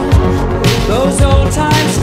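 Background music: a pop-style track with a steady drum beat and held notes.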